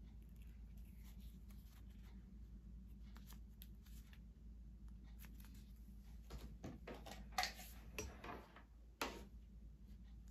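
Faint handling sounds: soft rustling and a few light knocks from hands setting down a stitched leather sample and picking up a sewing machine foot controller, the sharpest about seven and a half and nine seconds in, over a low steady hum.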